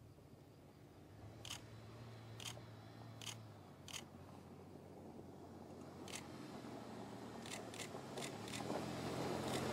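Toyota FJ Cruiser's 4.0-litre V6 and tyres on a gravel dirt track, a low hum and rushing noise growing louder as it approaches, with scattered sharp clicks through the middle.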